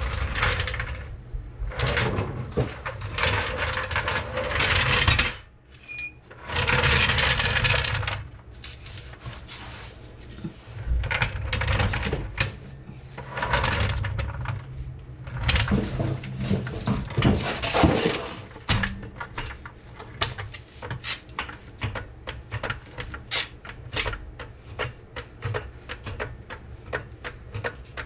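Hand tools working metal on a car's underside: a few rasping bursts of a second or two, then a long run of quick metallic clicks and clinks.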